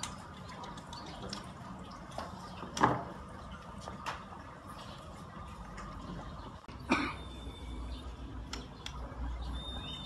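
Knocks and clatter from a metal bird cage and a plastic stool being handled and set down, two louder knocks about 3 and 7 seconds in, over a steady background hum. A faint thin high whistle comes in after the second knock.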